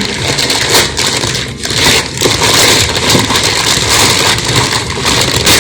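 Close handling of a cardboard shipping box and its packaging: continuous scraping, crackling and rustling as it is worked at to get it open.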